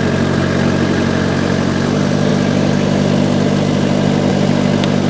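Diesel engine of a Vermeer S925TX mini skid-steer running steadily; its note steps up slightly about two seconds in.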